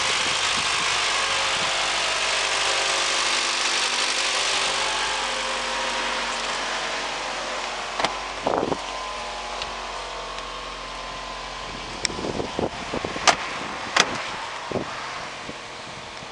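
Mitsubishi Lancer's 2.0-litre 4B11 four-cylinder engine running steadily, gradually growing fainter. From about eight seconds in, a string of short clicks and clunks as a rear door handle is pulled and the door opened.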